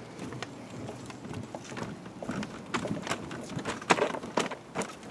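Stroller wheels rolling over the boards of a wooden footbridge, with walking footsteps: a run of irregular clacks and knocks that grow louder in the second half, the loudest about four seconds in.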